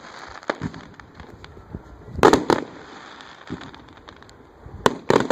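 Aerial fireworks bursting overhead: a loud boom about two seconds in, scattered smaller pops and crackling, and two sharp bangs in quick succession near the end.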